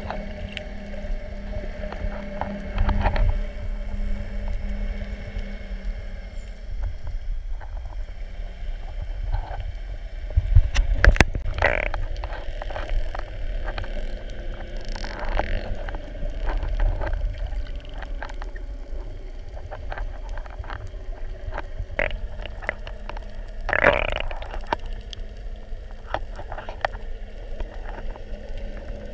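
Sound recorded underwater: a low muffled rumble of water against the camera, with many scattered short clicks and a few louder bursts about three, eleven and twenty-four seconds in.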